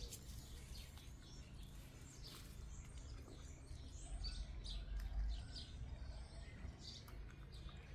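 Faint, scattered chirps of small birds over a low rumble that swells slightly around the middle.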